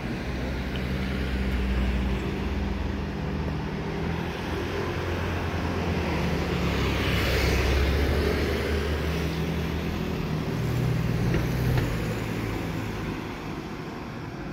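Engine drone of passing vehicles, with low pitched tones that shift as it swells and fades, loudest about eight seconds in, where a hiss joins it.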